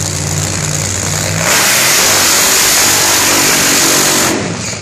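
Top Fuel Funny Car's supercharged nitro V8 idling with a steady low rumble. About a second and a half in, it goes to full throttle for a burnout, very loud for about three seconds, then drops back.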